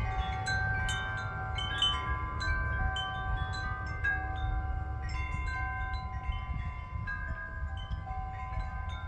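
Homemade tubular wind chimes cut from metal light-stand poles, knocked by a light breeze: many overlapping ringing tones, struck again several times a second. A low rumble of wind sits underneath.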